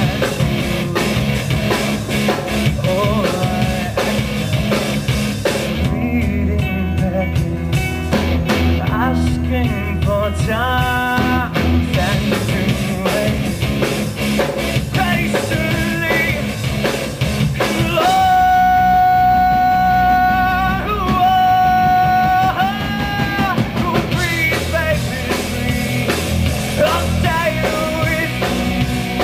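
Live pop-rock band playing: a male singer over two electric guitars and a drum kit, with long held sung notes a little past the middle.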